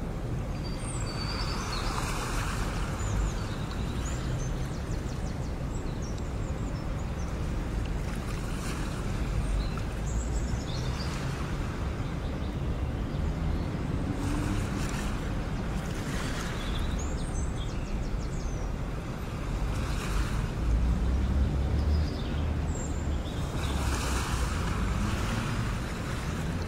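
Sea waves washing in swells every few seconds over a steady low rumble of wind, with a few faint high chirps.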